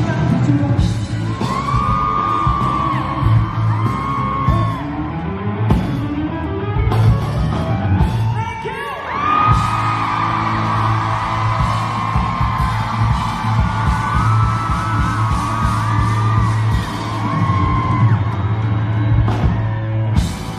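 Live band performance of a pop-rock song, with a singer holding long, wavering notes over the band, and yells and whoops from the audience.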